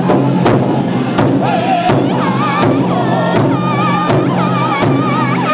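A powwow drum group strikes a large shared drum together in a steady beat. The singers' voices join in high and wavering from about a second and a half in.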